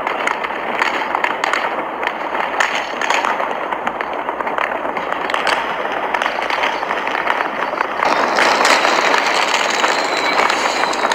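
Fireworks display: a dense run of crackling and popping from bursting shells, growing louder about eight seconds in.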